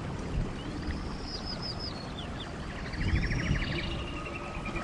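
Forest ambience: birds calling in a run of quick falling chirps and a fast trill over a steady rushing background.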